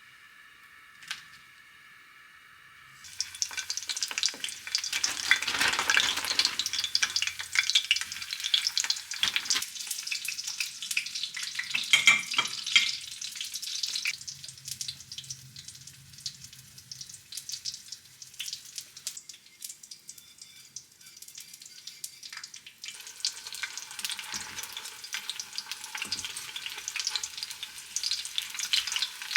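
Food sizzling and crackling in hot oil in a pan. It starts suddenly about three seconds in, eases off past the middle, and comes back strongly near the end.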